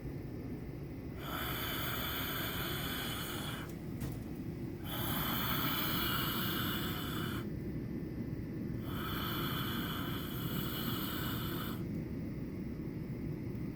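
A hissing noise carrying a few steady high tones, coming on for about two and a half seconds and stopping for about a second, repeating three times, over a steady low rumble.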